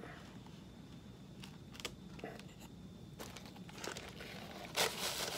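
Paper towel being handled and crumpled: scattered small rustles and clicks, then a louder crinkling burst near the end.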